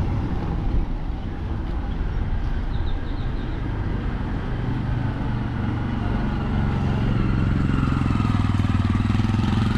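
Motorcycle engine running steadily over road rumble, its low hum growing stronger over the last few seconds.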